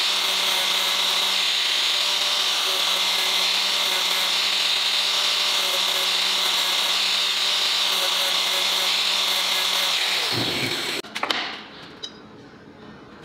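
Angle grinder running and grinding small steel pieces: a steady motor whine over a harsh grinding hiss. About ten seconds in the grinder stops and its pitch falls away as it winds down, followed by a few short metal knocks.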